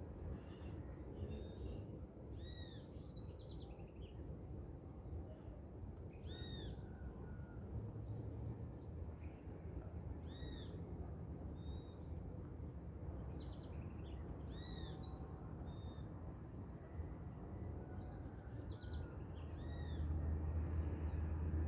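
Dawn chorus of several birds. One bird repeats a short arching call every three to four seconds while others give scattered chirps, over a steady low rumble.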